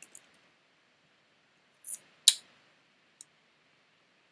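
A few sharp clicks from a computer keyboard and mouse, with one much louder click about two seconds in just after a short scrape.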